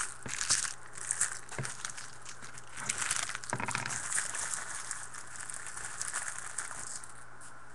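Trading card pack wrappers crinkling and being crumpled and torn, with many sharp little clicks; the crinkling eases off to a faint hiss about seven seconds in.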